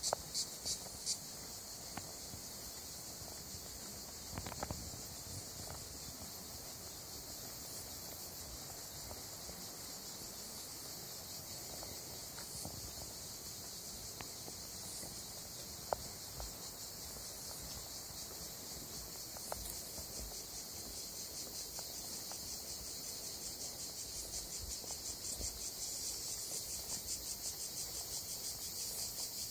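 Insects chirring in a steady high-pitched drone with a fast, even pulse, growing louder near the end.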